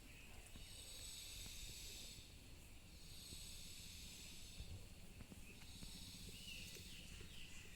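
Faint garden ambience: a high hiss that swells twice, with a few faint bird chirps near the end.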